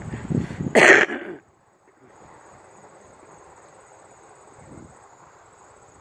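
Brief voice sounds and a short, loud burst of noise in the first second and a half. After a moment's dropout, a faint steady background hiss with a thin high-pitched whine.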